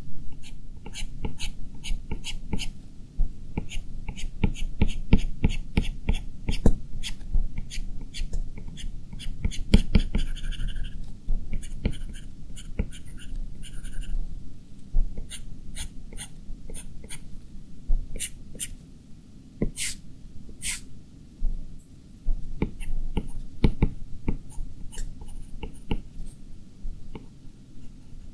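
Stylus tip tapping and scratching on the glass screen of a 12.9-inch iPad Pro while drawing, in many quick, irregular short strokes.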